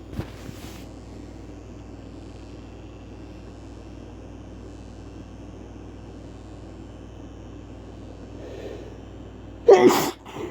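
A man sneezes once, loudly, near the end, after a faint intake of breath; the sneeze is induced by chhikni sneezing powder. A steady low hum lies under the rest.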